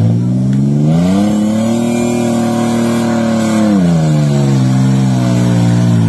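Modified off-road 4x4's engine revving as it pushes through deep muddy water: the revs climb over the first couple of seconds, hold high for about two seconds, then drop back to a lower steady note.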